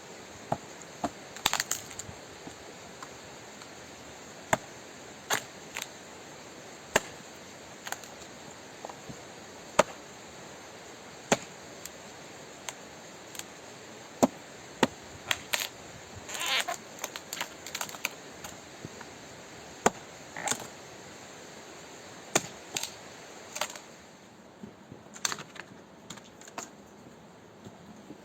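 Scattered sharp clicks and knocks at irregular intervals, with a little rustling, over a steady hiss that drops somewhat near the end.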